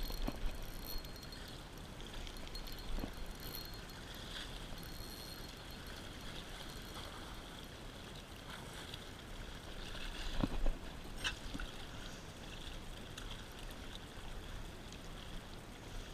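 Sea water lapping and washing against the rocks at the foot of a breakwall, with two short sharp knocks about ten and eleven seconds in.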